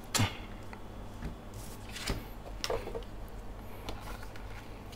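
Light handling sounds of keyboard parts: a few short plastic clicks and taps, the loudest right at the start and others about two seconds in.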